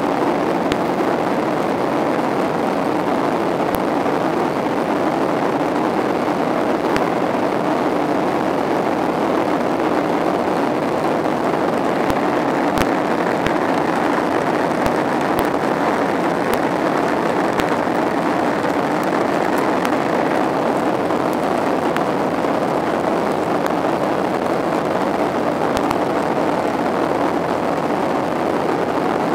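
Steady rushing cabin noise of a Boeing 737-800, its CFM56-7B engines and the airflow over the fuselage heard from inside the passenger cabin, with a few faint ticks.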